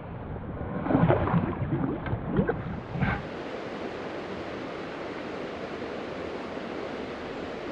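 Steady rush of flowing river water, with wind on the microphone. Some brief pitched sounds that bend up and down over the first three seconds give way to the even rushing.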